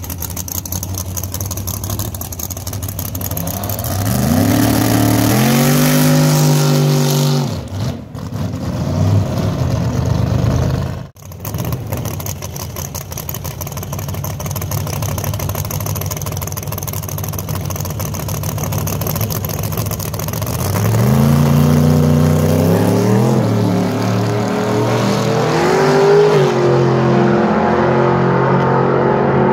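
Drag-racing car engines accelerating, their pitch climbing in steps as they shift through the gears, over a steady engine drone. One run starts about four seconds in and breaks off before eight seconds. Another climbs from about twenty seconds in and stays high near the end.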